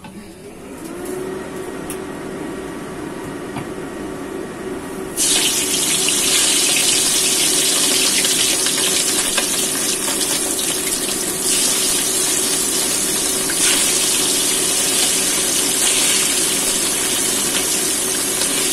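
Oil in a wok hissing as it heats, then about five seconds in a sudden loud, steady sizzle as chicken pieces go into the hot oil and deep-fry.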